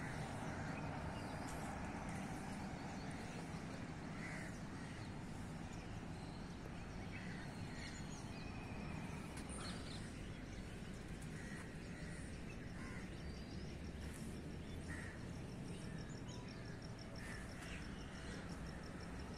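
Outdoor hilltop ambience: a steady low rumble with scattered short bird calls. About two-thirds of the way in, a fast, evenly repeated high-pitched chirping begins and keeps going.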